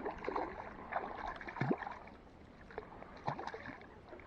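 Water splashing and lapping close by, in irregular small splashes and swishes; the loudest comes a little under two seconds in.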